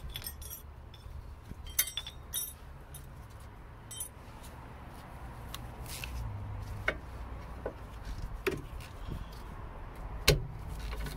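Scattered small metal clinks and clicks of hand tools being handled, as a ratchet and socket are fitted onto a rear brake caliper carrier bolt, with one sharper metallic click about ten seconds in.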